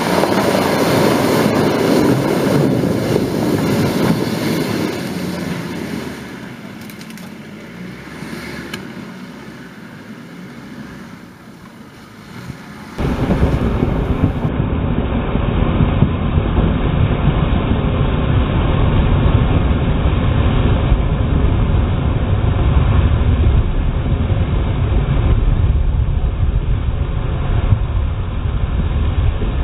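An off-road 4x4's engine running under load while its tyres churn through deep mud. It eases off about six seconds in, then about thirteen seconds in the sound switches abruptly to a duller, steady low rumble.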